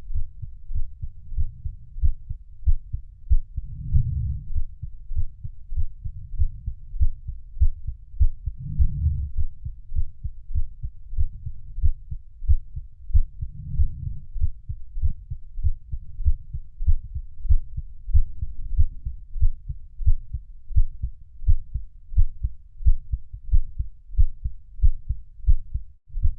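Heartbeat sounds: a steady, regular beating, deep and low, with a fuller swell coming in about every five seconds.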